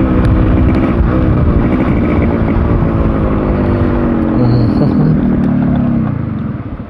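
Yamaha RX100's two-stroke single-cylinder engine running as the bike rides along, its pitch falling over the last few seconds as it slows, then its sound dropping away sharply near the end.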